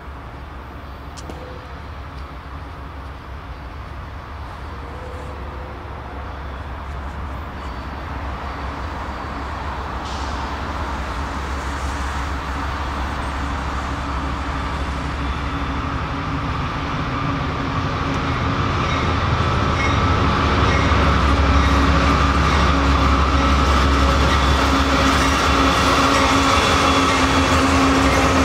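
BNSF diesel locomotives leading a loaded grain train approach and pass close by, their engine rumble and hum growing steadily louder and reaching full strength in the last several seconds as the lead units go past.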